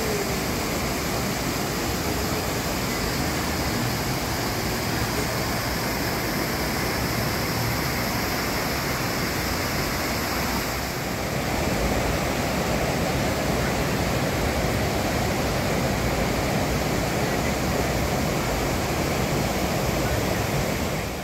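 Steady rushing of a rocky mountain stream and waterfall. About halfway through, the rush turns fuller and lower.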